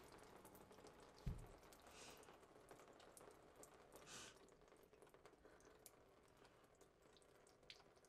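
Near silence: faint scattered drips of water in a quiet room, with one soft low thump about a second in.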